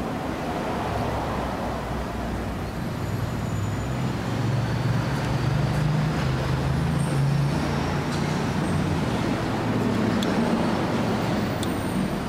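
Low rumble of passing road traffic, swelling about five seconds in and again around ten seconds.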